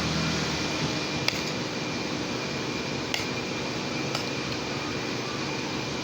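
Electric fan running with a steady whirring hiss and a faint hum. A few light clicks sound about a second in, around three seconds in and again a second later.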